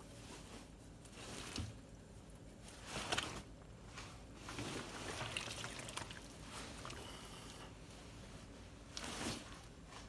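A wet polyester uniform jacket being lifted and turned in a sink of just-boiled water: faint sloshing, dripping and squishing, coming in a few irregular soft swells.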